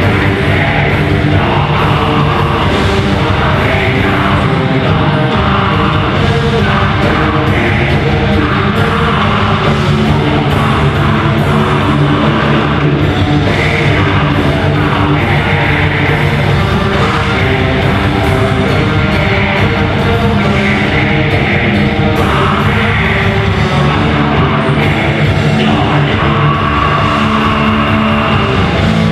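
A rock band playing live at full volume, with distorted electric guitars, bass and drums, and a vocal line over it.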